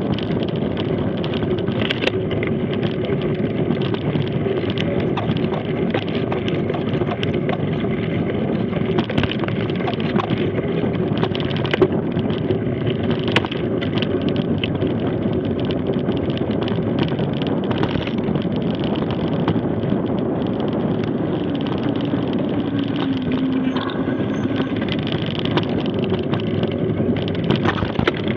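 Mountain bike rolling fast down a dirt trail: a steady rumble of knobby tyres on the ground with wind on the microphone, and frequent clicks and rattles from the bike as it bounces over the trail's bumps, the rider coasting rather than pedalling.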